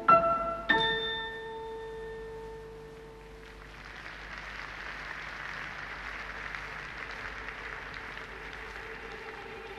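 The music's last two notes sound, about a second apart, and ring out and fade. Then audience applause sets in about three and a half seconds in and carries on steadily.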